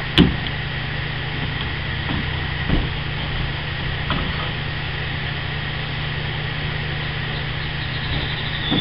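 Steady low mechanical hum, with one sharp click just after the start and a couple of faint knocks a few seconds in.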